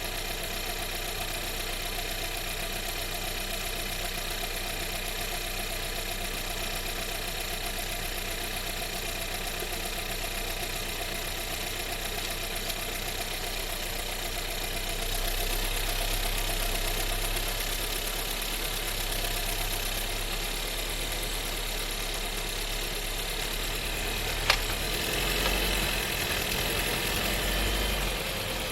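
Skoda Scala's 1.5 TSI four-cylinder turbo petrol engine running steadily, heard inside the car's cabin. The drone grows a little louder about halfway through, and a single sharp click sounds near the end.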